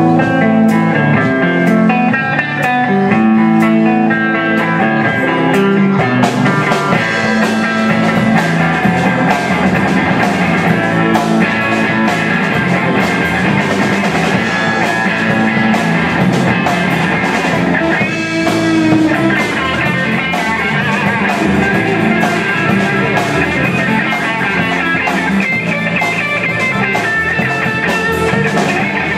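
Live rock band playing an instrumental passage: electric guitar and electric bass over a drum kit, with the cymbals getting busier about six seconds in.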